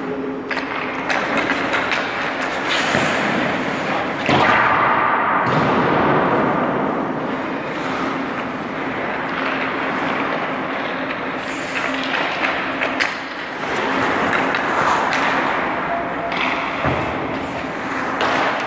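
Hockey skates scraping and carving on rink ice, with repeated thuds of pucks, sticks and pads, over a steady low hum.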